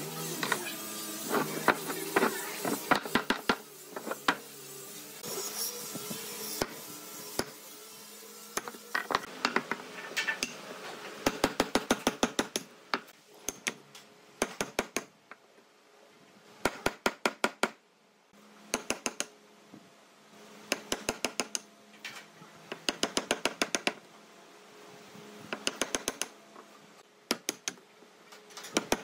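Wooden mallet striking a chisel to chop a mortise in an old hardwood beam: fast runs of sharp knocks, several a second, with short pauses between runs.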